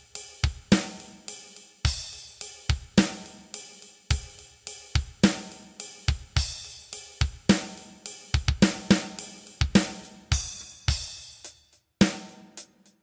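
Drum kit playing a steady groove on its own with no other instruments: kick and snare hits under hi-hat and cymbal. It pauses briefly near the end before the beat resumes.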